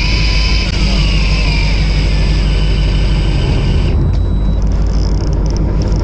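Fishing boat's engine rumbling steadily with wind and sea noise, and a high hiss and thin whine that cut off about four seconds in.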